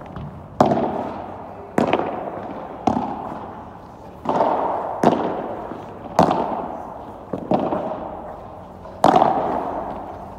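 Padel rally: the ball is struck by padel rackets and bounces on the court, about eight sharp pops roughly a second apart, each with a long echo under the covered court's dome.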